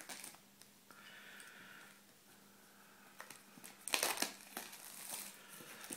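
Plastic shrink-wrap film being peeled and crumpled off a phone box: intermittent crinkling, loudest about four seconds in.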